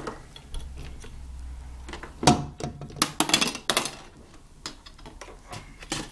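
Hard plastic knocks and clatter of a toy play kitchen being handled: a sharp knock about two seconds in, then a quick run of clattering knocks, with scattered lighter ones after.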